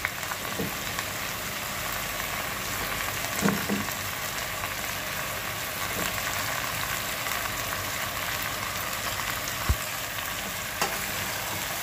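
Yardlong beans, squash and chicken sizzling in a pot with a steady frying hiss. A couple of sharp clicks near the end come from a metal spoon against the pot as the vegetables are stirred.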